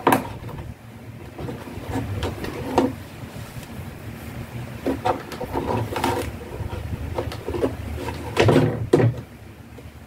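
Handling noise of hands working on the wiring inside a washing machine's plastic housing: a sharp knock right at the start, then scattered light knocks and rustles, with a louder cluster near the end.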